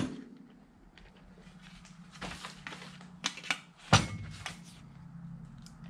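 A steel patch-panel blank being handled and fitted into the jaws of a tabletop metal shrinker, with metal clinks and scrapes and a sharp metal clunk about four seconds in. A steady low hum runs underneath.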